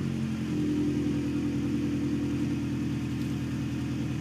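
Honda Civic Type R EK9's B16B four-cylinder VTEC engine idling steadily through a Spoon Sports exhaust muffler, heard at the tailpipe.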